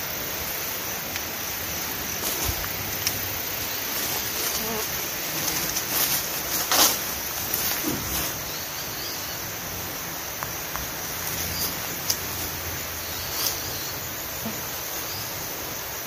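Steady insect chorus of crickets or cicadas, a continuous high hiss, with a few short knocks and rustles now and then.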